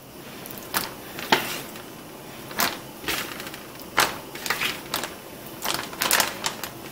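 Raw chicken pieces being dropped by hand into a plastic zip-top bag of flour, with the bag crinkling: a string of irregular soft rustles and crackles.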